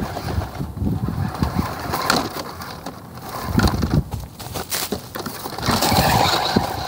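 Radio-controlled truck driving over dry grass, with many short crackles. It comes close past the microphone about six seconds in, where a motor whine rises out of the noise. Wind buffets the microphone underneath.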